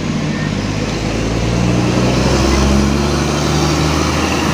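Heavy bus engine running as it goes by on the road, its low note growing louder toward the middle and easing slightly after.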